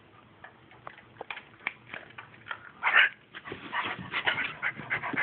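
A large dog making short rough vocal noises, which begin with a loud burst about three seconds in after a quiet start and go on in quick bursts.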